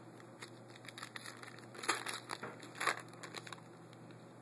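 Foil trading-card pack wrapper crinkling and tearing as it is opened by hand: a run of small crackles, with two louder crackles about two and three seconds in.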